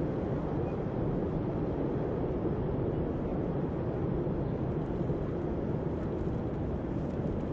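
Steady low rumbling ambient drone: a sound-design background bed under a computer animation, even and unchanging.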